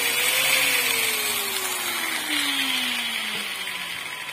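Electric angle grinder running and then winding down, its pitch falling steadily and the sound fading.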